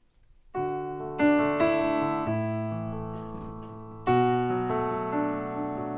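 Piano chords played on a keyboard, starting about half a second in after near silence. Each chord is struck and left ringing as it fades, at a slow pace, with a strong new chord about four seconds in.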